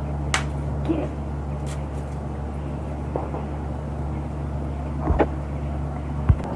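A steady low mechanical hum with a few sharp clicks or snaps over it, the loudest near the end.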